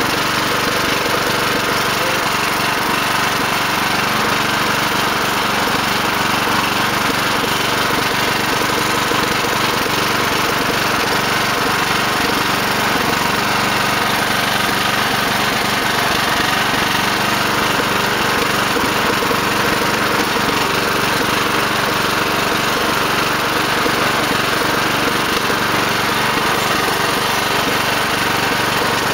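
Engine of a 2005 Bolens (MTD) riding mower running steadily.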